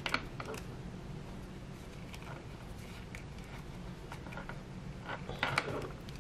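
Faint rustling and small clicks of fingers folding and pinching a piece of thin grey leather, over a low steady hum.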